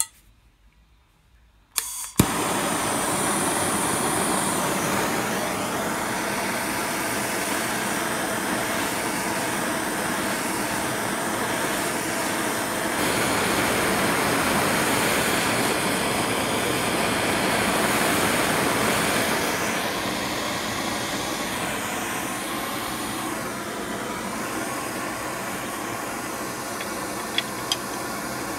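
Hand-held gas torch lit with a sharp click about two seconds in, then its flame burns with a steady rushing hiss as it heats a steel bracket. Two small clicks near the end.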